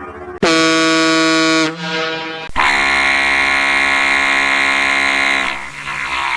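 Two blasts of an effect-altered cruise ship horn: a short one about half a second in that sags in pitch as it ends, then a longer blast of about three seconds starting near two and a half seconds in.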